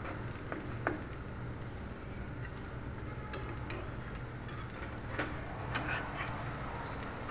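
Metal spatula and wooden spoon scraping and tapping against a ceramic-coated frying pan as a cake of fried yellow sticky rice is lifted and turned over. A few light clicks come at scattered moments over a steady low background.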